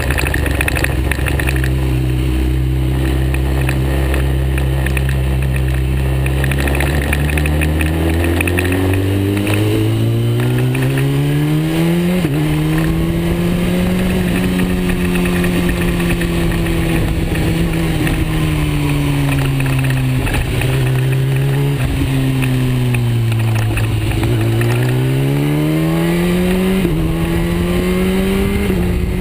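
BMW S 1000 RR's inline-four engine under way on the road: it runs low and steady, pulls up through the revs to a gear change about twelve seconds in, holds, eases off, then pulls up again to another gear change near the end, with wind rushing past.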